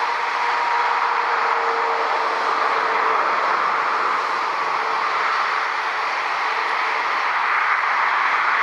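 Steady rushing jet-engine noise from a Boeing 787 Dreamliner rolling along the runway, with a faint whine that fades after a few seconds.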